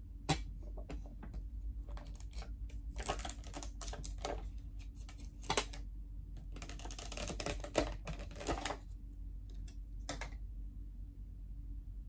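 Plastic yogurt containers being handled close to the microphone: scattered clicks and taps, with a longer stretch of rustling about seven seconds in. A steady low hum runs underneath.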